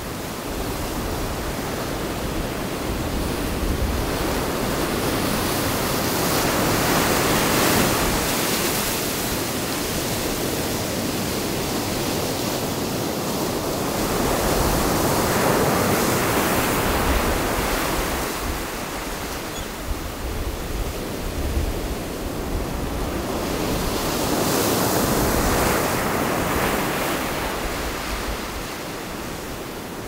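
Sea waves breaking over rocks and washing up a sandy beach. The surf swells and falls back in three slow surges, one about every eight to nine seconds.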